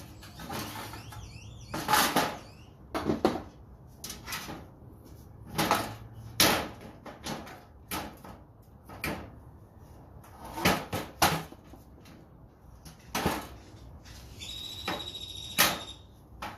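Sheet-metal knocks and clanks from fluorescent light fixtures being taken apart by hand, a dozen or so at irregular intervals, with scraping in the first couple of seconds and a short high-pitched squeal near the end.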